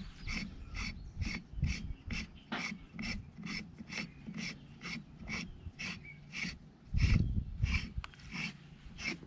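Threaded end cap being screwed down onto a hydraulic cylinder, the metal threads rasping in short regular strokes about three times a second. There is a heavier low knock about seven seconds in.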